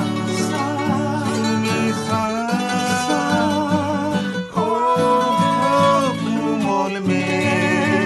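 A man singing a song, accompanied by acoustic guitars.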